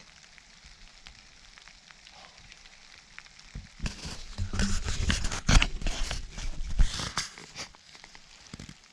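Faint crackling patter, then from about three and a half seconds in, some four seconds of loud rustling with clicks and knocks close to the microphone, dying away near the end.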